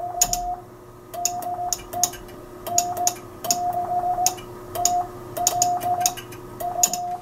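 Hand-sent Morse code (CW) heard on a Kenwood TS-820 receiver monitoring a Johnson Challenger tube transmitter keyed into a dummy load. A steady mid-pitched tone switches on and off in dots and dashes, with a sharp click at the start and end of each one. The tone keys cleanly, the sign that the Keyall module is switching the transmitter properly.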